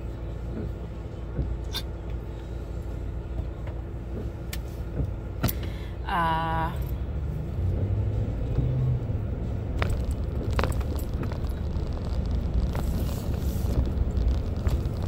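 Steady low rumble of a car's engine and tyres, heard from inside the cabin while driving, with a few faint clicks.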